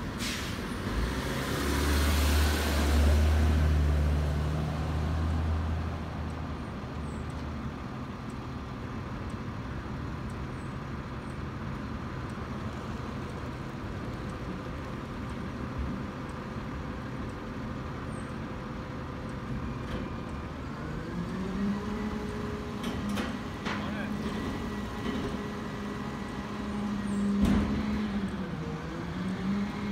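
A car drives close past with a rush of tyre and engine noise. Later a garbage truck's engine climbs to a higher steady speed and holds there, dipping briefly and rising again near the end, with a few sharp knocks.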